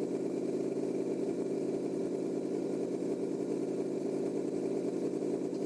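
2000 Chevy Silverado's engine idling steadily with its low-speed electric cooling fan running, the engine warm and the coolant climbing toward the high-speed fan's switch-on temperature.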